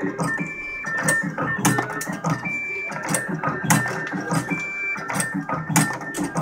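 Automatic wire cutting and stripping machine cycling: a mechanical clatter with knocks and a short high tone that repeat about every two seconds as it feeds, cuts and strips each length of wire. Music plays along with it.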